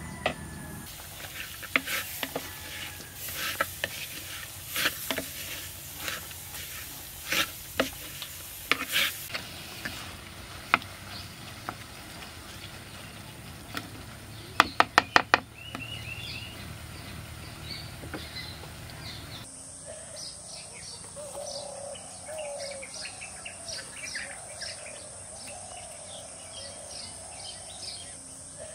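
A spoon scraping and knocking against a clay pot as a beetroot and potato mixture is stirred, with a quick run of about six taps midway. In the last third, birds chirp over a steady high insect buzz.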